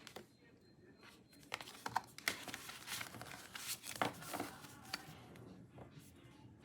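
Album packaging being unwrapped and handled: crinkling and tearing with quick clicks and taps, busiest from about a second and a half in until about five seconds in.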